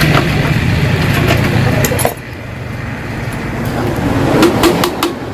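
A steady low motor hum that cuts off about two seconds in, followed by light metallic clinks and taps.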